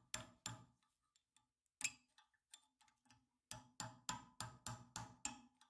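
Faint, light metal-on-metal taps as a 1964 Impala door hinge bushing is driven out of the hinge held in a vise. A few scattered taps come first, then a pause, then an even run of about three taps a second through the second half.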